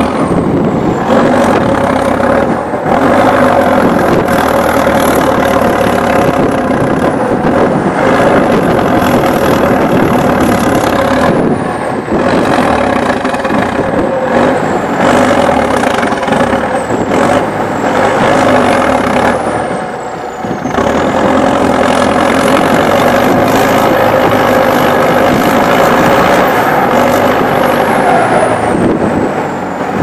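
Zetor Crystal 10145 Turbo tractor's turbocharged diesel engine running hard, pulling a loaded trailer through deep mud. The revs rise and fall several times, dipping briefly about a third and two-thirds of the way in, and a high turbo whistle rises and falls with them.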